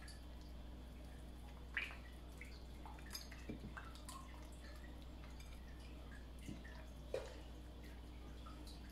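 Hands working marinated meat pieces in a bowl, rubbing chermoula marinade into them: faint, scattered wet squelches and small ticks over a low steady hum.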